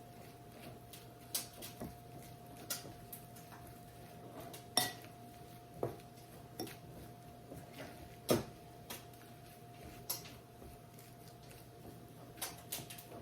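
A utensil clinking and knocking against a bowl at irregular intervals while chicken salad is stirred. The sharpest knocks come about five and eight seconds in.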